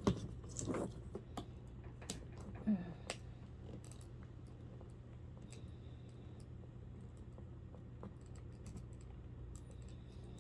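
Irregular small clicks and taps of a screwdriver and plastic parts of a clock radio being worked apart by hand, several close together in the first few seconds and then only a few scattered ones, over a low steady hum.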